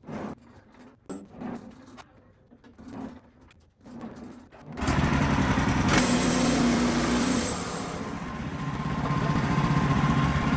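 A few faint knocks, then about halfway a small engine starts abruptly and runs steadily at a constant speed.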